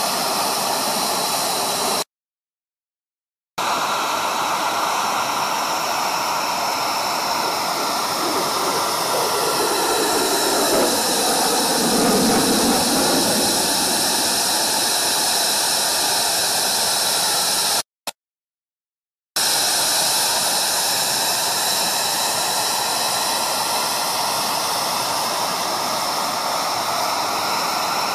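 F-22 Raptor's twin Pratt & Whitney F119 afterburning turbofans during a display flight: a steady rushing jet roar with tones that slowly slide up and down as the jet moves past, swelling deeper midway through. The sound is cut to silence twice, for a second or so each time.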